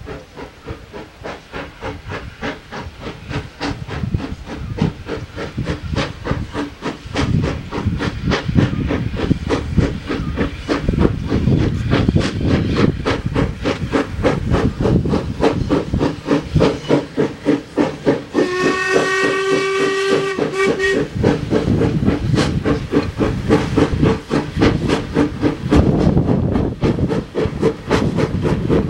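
Steam locomotive (Sri Lanka Railways B2B No. 213) working toward the camera, its exhaust chuffing in a fast, even rhythm that grows steadily louder. About two-thirds of the way through, its steam whistle sounds once, one steady tone lasting about two and a half seconds.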